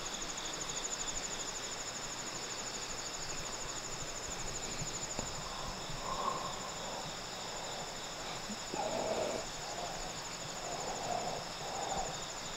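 Night insects singing steadily: a continuous high, rapidly pulsing trill over fainter steady insect songs. A few faint short lower sounds come and go in the second half.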